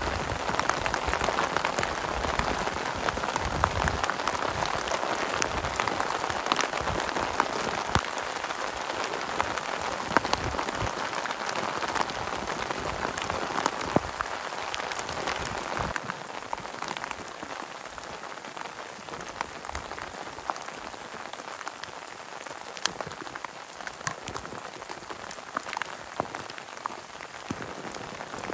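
Heavy rain falling on a plastic tarp stretched over a tent: a dense steady hiss with many sharp drop ticks. It grows a little softer from about halfway through.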